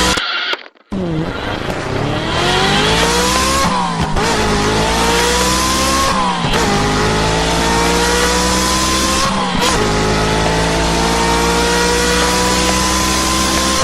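Car engine sound effect accelerating through the gears: the pitch climbs for two to three seconds, then drops sharply at each shift, about four times. It cuts out briefly about half a second in.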